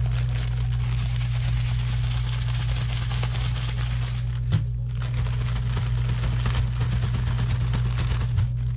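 Plastic zip-top bag rustling and crackling as walleye pieces are shaken in cornflake crumbs to coat them, with a brief pause about halfway. A steady low hum runs underneath.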